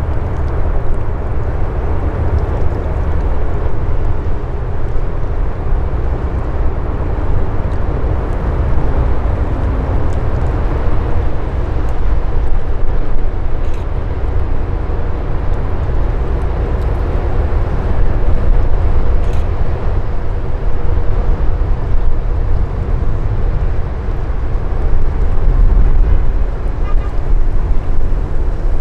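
River cruise ship's engines running as it passes close by, a steady low rumble, with wind buffeting the microphone.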